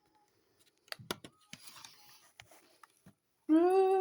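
A few soft clicks and rustles, then about three and a half seconds in a person's voice starts a long held note, the loudest sound.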